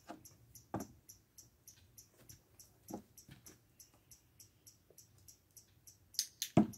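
A horse's hoof thuds on dirt, faintly twice, then loudly near the end as the right foreleg is lifted and set down. A steady high ticking, about five a second, runs underneath.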